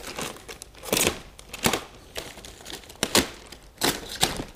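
Clear plastic bag crinkling and rustling as it is slit with a knife and pulled back, with a handful of sharp crackles about a second apart.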